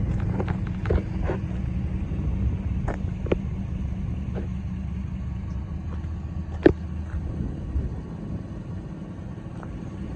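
A steady low rumble, with a few light clicks scattered through it and one sharper click about two-thirds of the way in.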